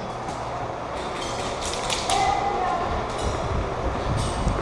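Scattered sharp snaps of airsoft guns firing and BBs striking, with low thumps from the camera-wearer running in the second half.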